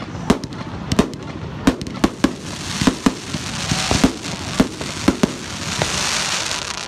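Aerial fireworks bursting overhead: a string of sharp, irregular bangs, with a dense high hiss swelling through the middle.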